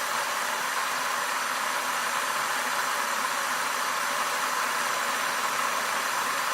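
Electric kettle with water boiling inside: a steady, even rushing hiss.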